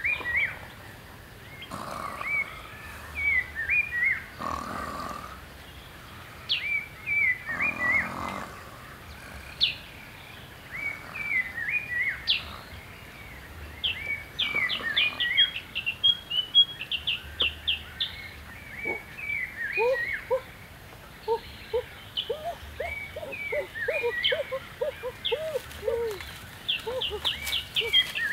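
Wild forest birds singing: a short warbled phrase repeating every second or two, with quick high chirps. About two-thirds of the way in, a second bird joins with a rapid series of lower chirps.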